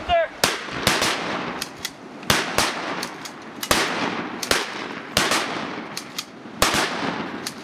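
Rapid, irregular gunfire from two shooters firing together, a 7.62×39 mm SKS semi-automatic rifle and a 12-gauge Remington 870 pump shotgun: more than a dozen sharp shots, sometimes in close pairs, each with a short echo.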